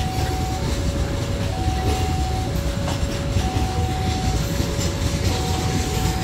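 Freight wagons of a Babaranjang coal train rolling past with a steady low rumble of wheels on rail. Over it a level-crossing warning alarm sounds two electronic tones, alternating high and low, each just under a second long.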